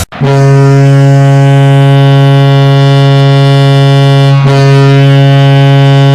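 An NHL arena goal horn blowing one long, steady, low-pitched blast, with a momentary break about four and a half seconds in.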